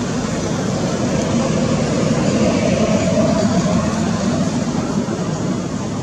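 A motor vehicle passing, a steady rushing sound that grows to its loudest about halfway through and then eases off.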